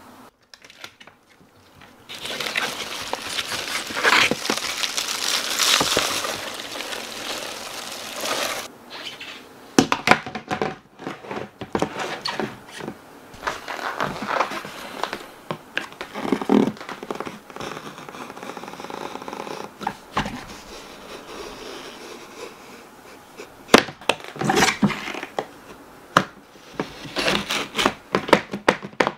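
Hands handling a plastic storage bin and its lid, with many sharp clicks and knocks and stretches of scraping. Near the end a utility knife scrapes along the plastic lid as it cuts into it.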